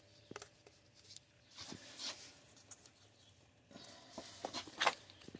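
Faint handling noises of a hand fumbling a plastic wiring connector onto a camshaft position sensor: light scratchy rustling and a few small plastic clicks, with a short, slightly louder rub near the end.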